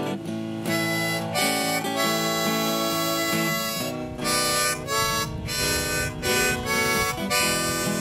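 Hohner Golden Melody harmonica in A, played cross harp, carrying a country blues line in E over acoustic guitar accompaniment, with held notes that change every half second or so.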